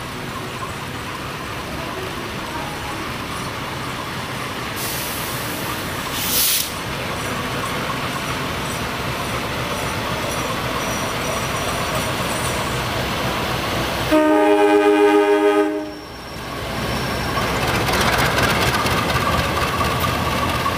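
CC 201 diesel-electric locomotive (GE U18C type) running past with a train of freight wagons, its engine and wheels making a steady rumble that grows louder near the end as it draws alongside. About fourteen seconds in it sounds one horn blast lasting nearly two seconds.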